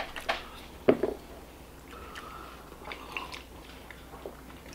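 People chewing bites of soft, doughy vegetable samosa, with a few sharp clicks in the first second.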